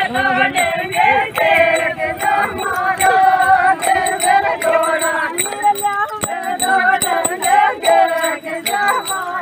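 A group of women singing a Meena folk song together, unamplified, with many sharp clicks through the singing.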